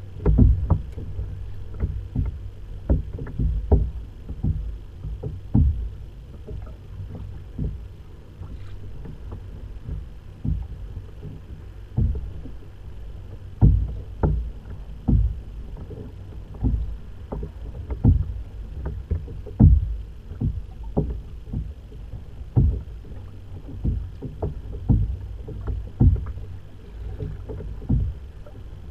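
Small waves slapping against a sit-on-top fishing kayak's hull: irregular low thumps, one or two a second, over a steady low rumble of water and wind.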